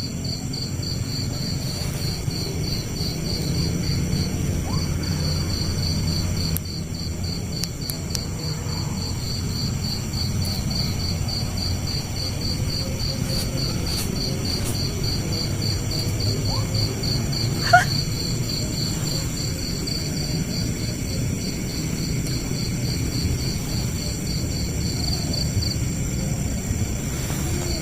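Night insects, crickets, chirping in a steady even pulse with a steady higher hum of other insects, under a low rumble; the pulsing stops near the end. A single sharp click about two-thirds of the way through.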